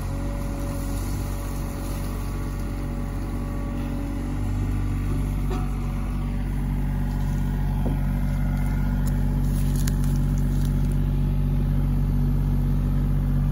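Sany SY35U mini excavator's diesel engine running steadily, a little louder from about four seconds in.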